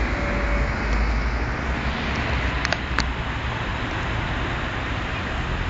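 Road traffic: a steady rumble and hiss of passing vehicles, with two short clicks about three seconds in.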